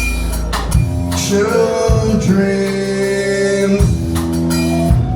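Live band music: sustained bass and keyboard notes, drum hits, and a voice singing a gliding line near the middle.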